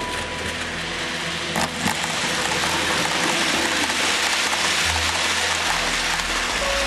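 HO-scale model of the Mistral train rolling along the track, a steady rushing rattle of wheels on rail that swells as the train passes close and eases near the end, with a couple of clicks just before two seconds in. Soft background music plays underneath.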